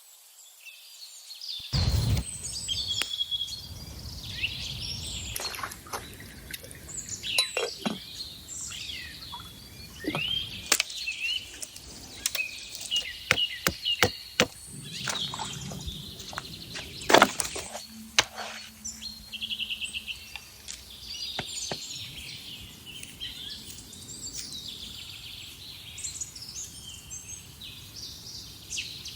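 Several birds chirping and singing, with scattered sharp clicks and knocks.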